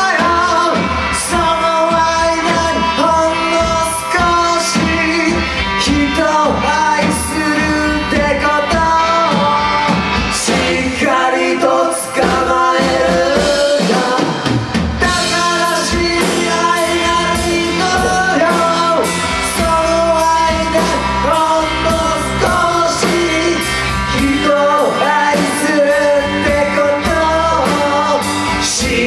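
Live rock band playing: a male vocalist singing over electric guitar, bass guitar and a drum kit.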